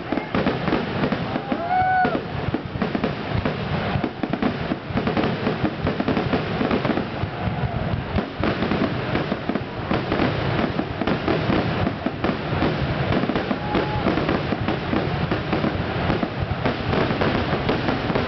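Fireworks display in a dense barrage: aerial shells and ground fountains bursting and crackling in quick succession without a break, with a few short whistles.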